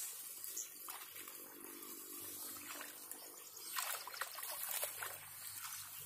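Water sloshing and splashing faintly as a man wades waist-deep through a muddy channel, with two brief louder splashes, about a second in and near four seconds.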